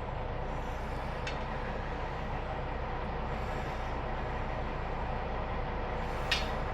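Steady low rumbling background noise with a faint hum, broken by a light click about a second in and another near the end.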